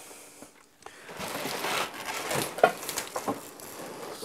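Damaged cardboard shipping box being pulled open by hand: cardboard scraping, flexing and crinkling in irregular bursts, with a sharp crack about two and a half seconds in.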